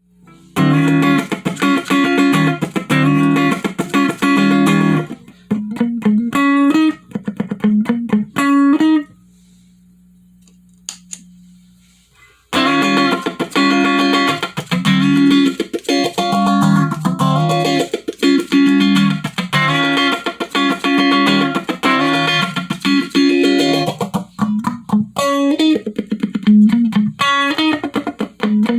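Electric guitar played through a Malekko Phase phaser pedal: rhythmic repeated chords. About a third of the way in the playing stops for roughly three seconds, leaving only a low steady hum, then picks up again.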